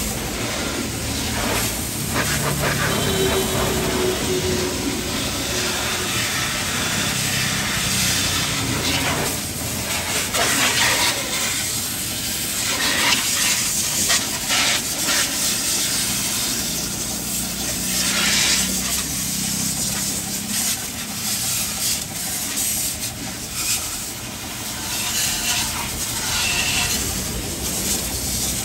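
Water spraying onto a car: a steady hiss that keeps swelling and fading as the jet moves over the bodywork.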